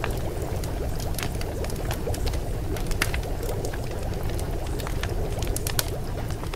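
Continuous bubbling, water-like noise with scattered sharp pops, the masking background track of a subliminal recording.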